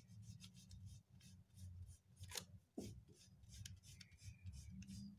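Faint, quick scratchy strokes of a crayon colouring in paper.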